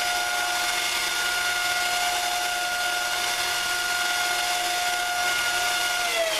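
Knife-making belt grinder running with a steady whine and hiss. About six seconds in it is switched off, and its pitch falls as it spins down.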